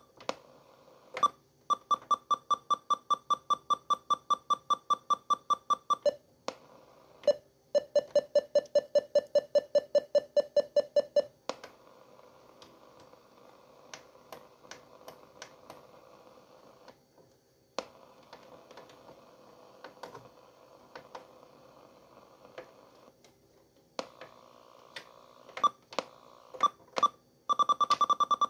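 Philips AE2380 portable radio beeping rapidly, about five short beeps a second, while its buttons are held: one run of high beeps for several seconds, a run of lower beeps after it, and a short high run near the end. Between the runs come faint static and clicks from the radio as it steps across the medium- and long-wave bands.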